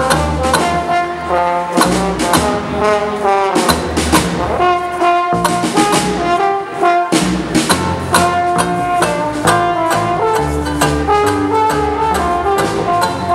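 Small hot-jazz band playing an instrumental break: trumpet and trombone carrying held melody notes over a steady snare-drum beat and double bass.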